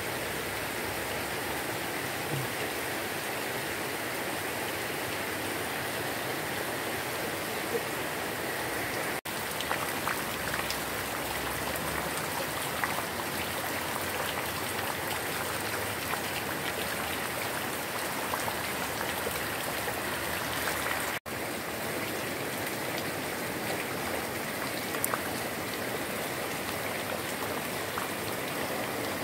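Steady rain falling on garden foliage and ground, with muddy runoff water running along a shallow drainage channel. The sound drops out for an instant twice.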